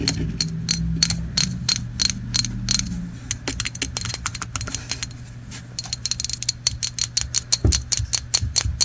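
Rapid, irregular clicking of a small hand-held object being worked, ratchet-like, several clicks a second, coming thicker near the end.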